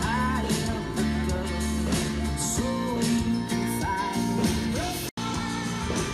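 Live pop-rock band playing, with a singer's voice and guitar, recorded from the crowd at a concert. The sound cuts out for an instant about five seconds in.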